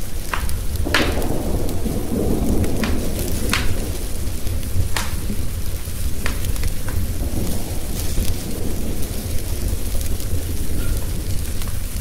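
Steady rain and rolling thunder, with a rumble of thunder swelling about a second in. A wood fire crackles over it with scattered sharp pops.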